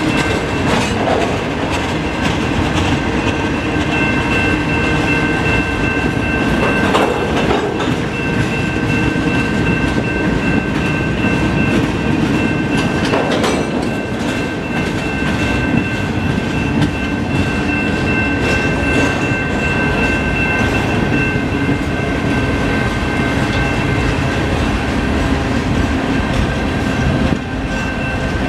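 Freight cars being shoved back slowly along the track: a steady rumble and clatter of steel wheels over the rails, with a thin, steady high whine running through it.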